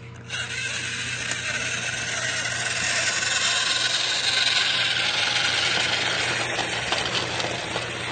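Battery-powered toy train's electric motor running: a steady whirring that switches on about a third of a second in and grows louder toward the middle.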